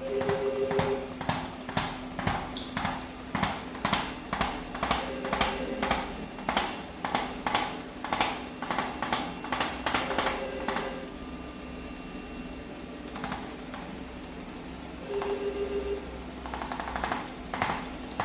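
A handheld percussive instrument taps rapidly on the neck in quick runs of about three strikes a second, used to mobilize restricted cervical joints. It stops about 11 seconds in, gives one tap a couple of seconds later, and starts again near the end.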